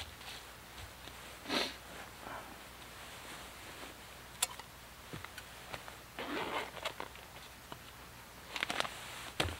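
Camp cooking gear being handled: rustling of a stuff sack and clothing, with a few light clicks and a soft knock near the end.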